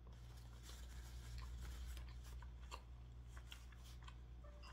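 Faint close-up chewing of cheesy garlic bread: soft irregular crackles and clicks of the mouth working the crust, over a steady low hum.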